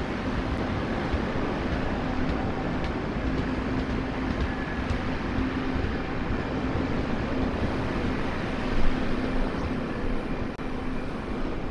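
Taiwan Railway's Formosa Moving (鳴日號) tourist train running through the station: a steady rumble with a low steady hum that stops near the end.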